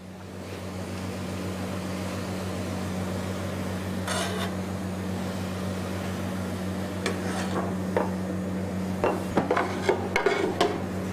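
Julienned vegetables sizzling steadily in a frying pan, with a few clinks and knocks of a utensil against the pan as they are stirred, mostly in the second half.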